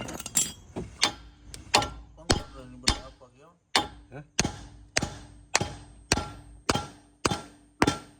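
Hammer striking a metal part in a steady rhythm, about a dozen evenly spaced blows a little under two a second, each with a short metallic ring, as suspension parts are knocked loose.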